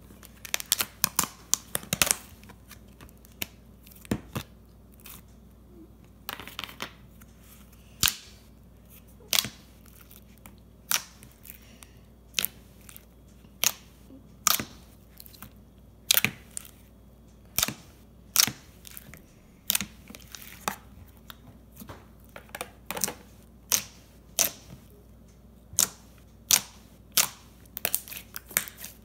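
White slime being poked, squeezed and kneaded by hand, giving a long irregular series of sharp wet clicks and pops, about one a second, with quicker clusters near the start and again near the end.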